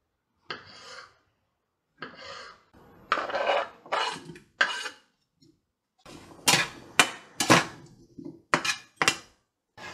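Kitchen cooking sounds in short separate bursts: a kitchen knife on a wooden cutting board and chopped vegetables scraped off the board into a skillet, then a utensil knocking sharply against the pan about five times during stirring.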